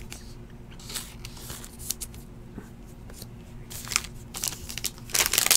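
Light rustling and clicking of a trading card and a plastic sleeve being handled, then the foil wrapper of a baseball card pack crinkling loudly near the end as it is opened.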